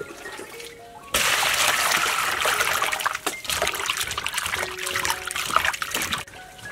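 Hands sloshing and scrubbing raw chicken feet in water in a stainless steel bowl, a busy splashing that starts about a second in and stops shortly before the end. Soft background music with gentle held notes plays around it.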